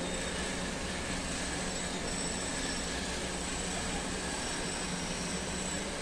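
Ground onion paste sizzling and bubbling steadily in hot oil and butter in a pan, the wet paste beginning to fry, over a faint low steady hum.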